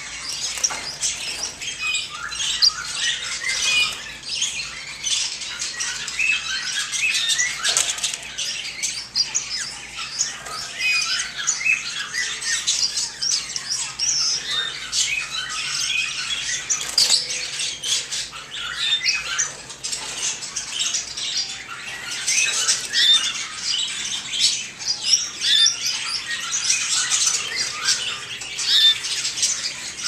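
A roomful of small cage birds, canaries and finches, chirping and calling over one another in a dense, continuous chatter of short, high calls.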